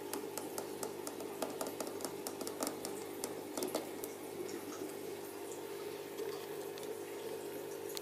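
Aquarium water bubbling from an air aerator over a steady hum, with many small pops and drips, most of them in the first half.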